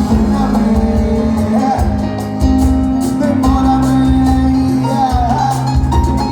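Live band music with singing over a rhythmic bass line.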